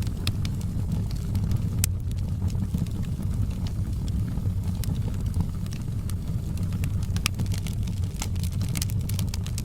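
Wood fire burning: a steady low rumble of the flames with sharp, irregular crackles and pops of burning wood, a few louder ones about two and seven seconds in.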